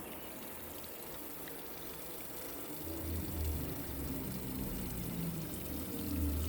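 Sunbeam Rain King K-20A travelling sprinkler spraying water with a steady hiss. A low hum comes in about three seconds in.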